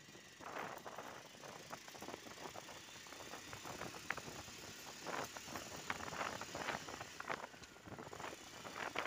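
Motorcycle running as it rides along a street, with road noise and scattered knocks and rattles.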